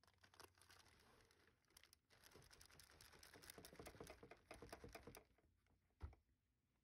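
Crinkling and rustling of plastic bag wrapping and foam packing sheet being handled in a cardboard box, a dense run of fine crackles that stops about five seconds in, followed by a single thump.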